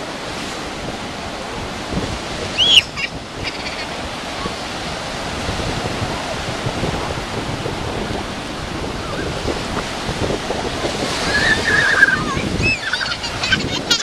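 Ocean surf breaking and washing up the beach. Over it, children's high shrieks, a sharp one about three seconds in and several more near the end.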